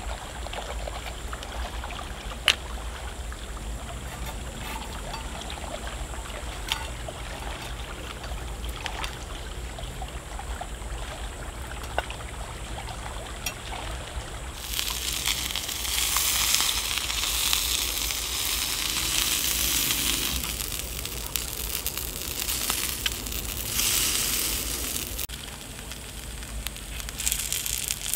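Wood fire burning in a metal hobo stove with a few sharp pops. About halfway through, a loud hiss begins as lobster with herb butter sizzles in a steel pan over the fire. The hiss breaks off briefly near the end and starts again.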